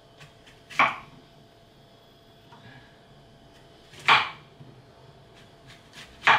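Kitchen knife cutting zucchini on a wooden chopping board, with light knocks of the blade. Three loud, short, sharp sounds come about a second in, at about four seconds and near the end.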